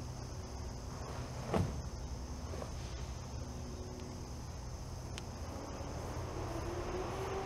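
Steady high-pitched chorus of crickets over a low, even hum, with a single short thump about a second and a half in.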